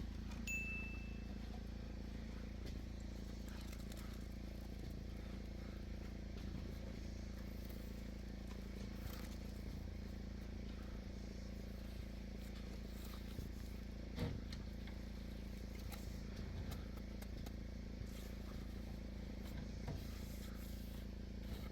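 An engine running steadily at a constant speed, with a few faint clicks and knocks over it, the loudest about fourteen seconds in.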